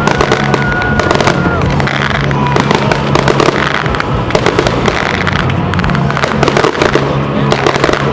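Fireworks display: a dense, continuous run of bangs and crackling bursts.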